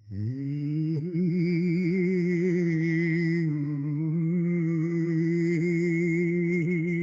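Horror 'ghost singing' sound effect: a wordless, eerie humming voice that swoops up into one long held note with a slow wavering vibrato. A thin high tone wavers above it. It starts suddenly out of silence.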